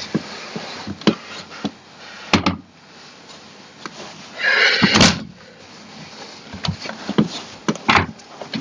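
Gaming chair parts being handled during assembly: scattered clicks and knocks, with a sharp knock about two seconds in and a scraping rustle ending in a knock about five seconds in.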